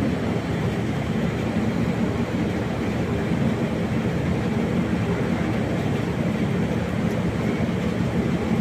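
Steady rushing of blown air with a low rumble, even and unbroken throughout.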